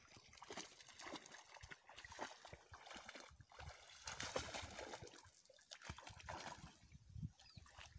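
A Belgian Malinois wading and leaping through shallow lake water: soft, irregular splashing and sloshing.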